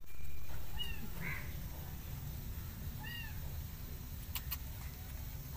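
Kitten mewing: short, high-pitched mews about a second in and again around three seconds, over a low rumble. Two sharp clicks near the end.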